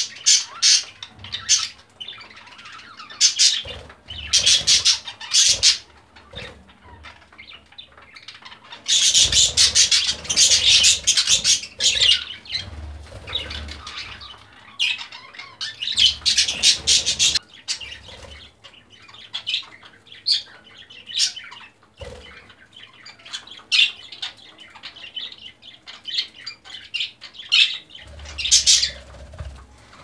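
Budgerigars chattering in rapid, shrill squawks and chirps, the densest burst about a third of the way in, with wings flapping as one bird mounts the other to mate.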